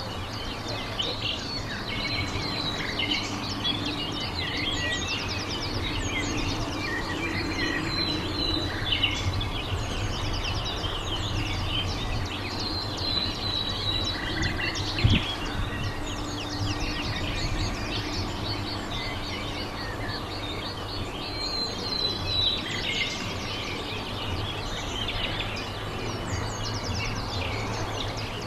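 Small birds chirping and twittering over a steady low outdoor hum, with a single sharp knock about halfway through.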